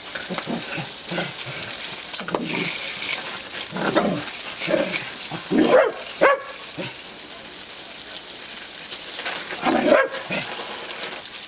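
Shetland Sheepdog barking in short, irregular bursts while it snaps at the jet from a garden hose, over the steady hiss of the water spray.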